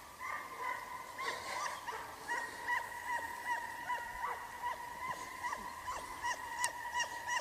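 A dog whining in a steady high pitch, broken by short yips about two or three times a second.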